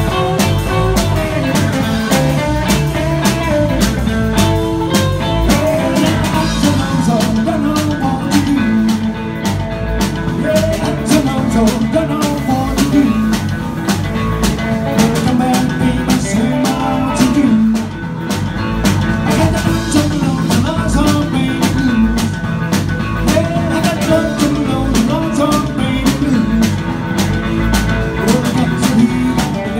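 Live rock and roll band playing: electric guitar over a drum kit keeping a steady beat.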